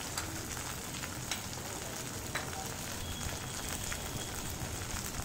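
Eggplant pieces and spice masala frying in oil in a metal wok: a steady sizzle with an occasional small pop.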